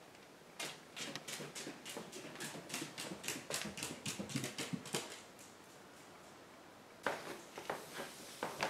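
A dog's claws clicking on hardwood stairs and floor as it walks down, a quick run of clicks for about four seconds. After a pause, heavier footsteps on the wooden stairs near the end.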